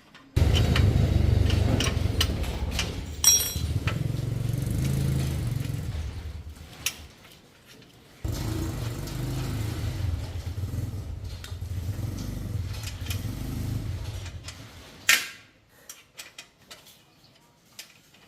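A motor running in two stretches of about seven seconds each, each starting suddenly and dying away; a sharp click follows near the end.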